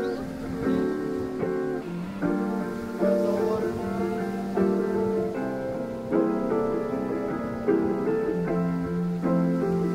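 Background instrumental music, with chords changing about every second.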